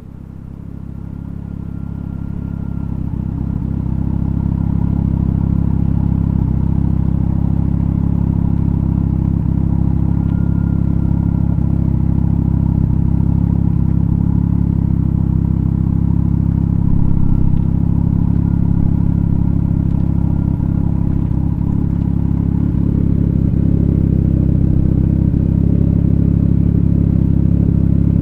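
Mitsubishi Lancer Evolution IX's turbocharged 4G63 inline-four idling steadily through an aftermarket exhaust: Invidia O2 housing and front pipe, 100-cell cat and 3-inch titanium cat-back. The idle builds up in level over the first few seconds, then holds steady.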